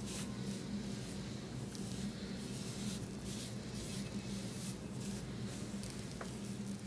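Soft, repeated swishing of a damp gauze pad wiped across the skin of a face, over a steady low hum.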